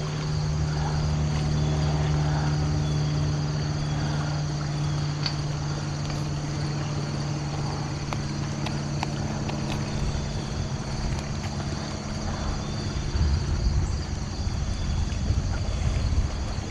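A steady low engine hum that fades out about three-quarters of the way through, followed by gusts of wind on the microphone, with a few light clicks.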